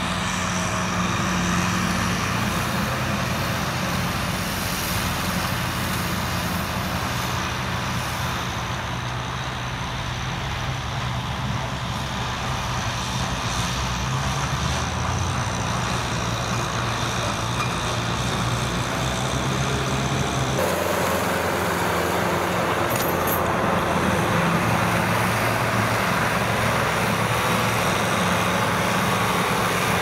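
Kubota M6040SU tractor's diesel engine running steadily under load while it drives a rotary tiller churning through dry soil. The sound changes abruptly about two-thirds of the way through: the low hum drops and a brighter, noisier wash takes over.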